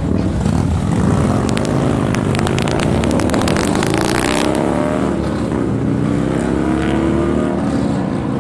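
A road vehicle's engine running and revving, its pitch rising and falling, with a quick run of sharp clicks from about a second and a half in to about four and a half seconds in.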